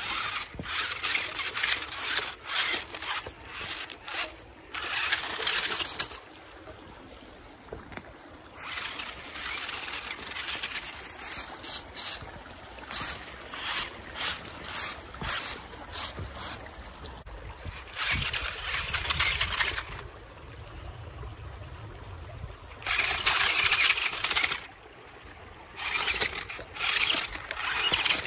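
Radio-controlled rock crawler picking its way over rocks and gravel: its motor and gears whir in bursts of a second or two as it drives and stops, with the tyres scrabbling on stone.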